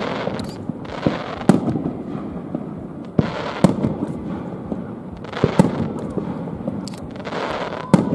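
Aerial firework shells bursting in a display: about eight sharp bangs at irregular intervals, each followed by a rolling echo.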